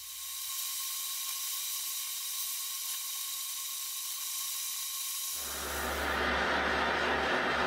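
Handheld butane canister blow torch burning with a steady hiss, its flame held on the hardened steel blade to temper it. About two-thirds of the way through, the hiss turns fuller and lower.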